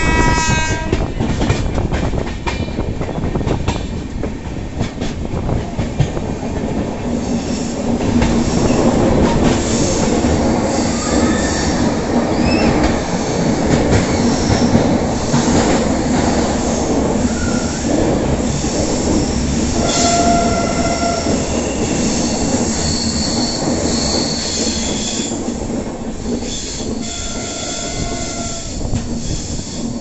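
Passenger train running, heard from an open carriage window: a steady rumble and rattle of the wheels on the track, with short high wheel squeals here and there. The train's horn cuts off about a second in.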